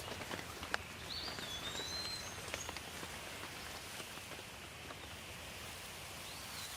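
Steady rain hiss with scattered drops ticking, and a bird calling: a sliding whistled call about a second in and a short one near the end.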